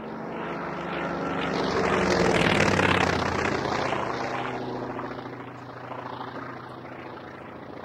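Polikarpov I-16 fighter's nine-cylinder Shvetsov radial engine and propeller in a fly-past. It grows louder to a peak about two and a half seconds in, the pitch drops as it passes, and the sound fades away.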